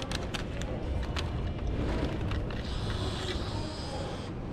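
Vending machine bill validator taking in a 1,000-yen note: a few clicks in the first second as the note is pushed into the slot, then the feed motor running for nearly two seconds as it draws the note in, stopping near the end. A low steady rumble of background ambience runs underneath.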